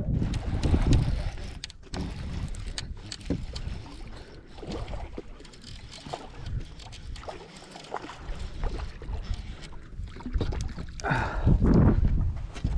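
Scattered knocks and clicks of gear and handling aboard a fishing boat, with two louder low rumbles, one about a second in and one near the end.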